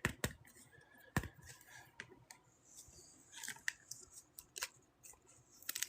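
Sparse light clicks and taps of trading cards being handled, with faint rustling between them and a sharper click about a second in.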